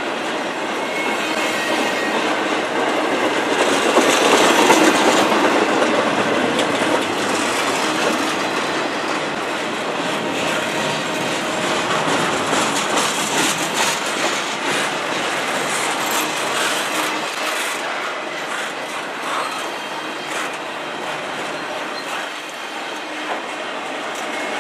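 Double-stack container well cars of an intermodal freight train rolling past at close range: steady wheel-on-rail noise with scattered clicks, loudest about four to six seconds in.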